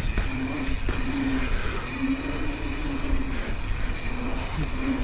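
Mountain bike riding a pump track: wind rumble on the microphone and tyre noise, with the rear hub's steady buzz coming and going in stretches as the rider coasts between pedal strokes.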